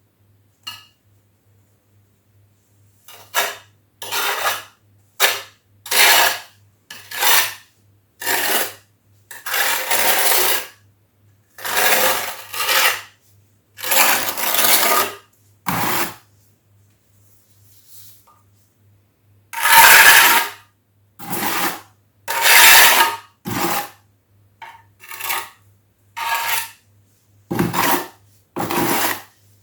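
Steel trowel scraping and spreading thinset tile mortar: a long series of irregular scrapes, some short and some over a second long, with a metal clink here and there.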